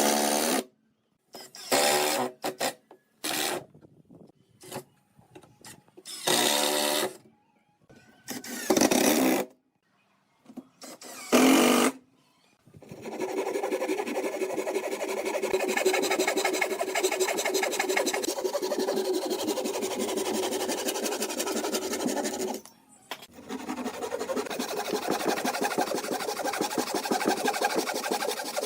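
A series of separate short scraping strokes on wood, then a small power tool running steadily with a fast, fine rattle, with one brief stop about four-fifths of the way through.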